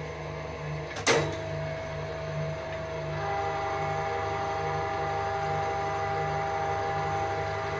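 Milling machine running with a steady, pulsing hum. A sharp click about a second in, then a steady whine comes in and grows stronger from about three seconds in.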